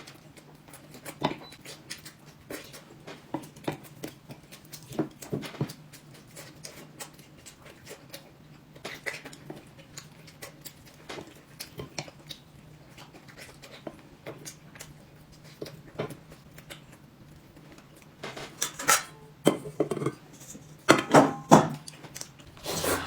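Light clinks and taps of chopsticks against dishes and bowls during a meal, scattered through and becoming louder and more frequent near the end.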